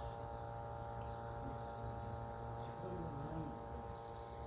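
Steady electrical hum, with an insect chirping in two short pulsed trills, one about two seconds in and one near the end.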